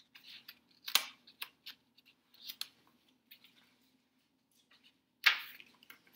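Pages of a paperback picture book being turned and handled: a string of crisp paper rustles and crackles, the loudest about a second in and again about five seconds in.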